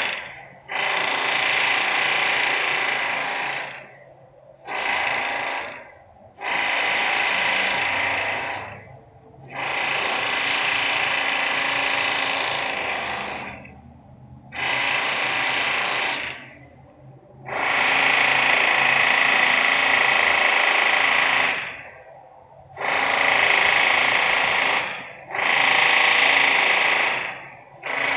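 Industrial machine noise: a power-tool-like machine runs in repeated bursts of one to four seconds, starting and stopping abruptly with short breaks, about nine times.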